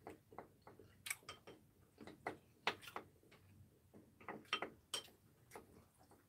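Faint eating sounds at a meal table: irregular light clicks and taps of a metal spoon and chopsticks against ceramic bowls and plates, mixed with chewing, a few a second.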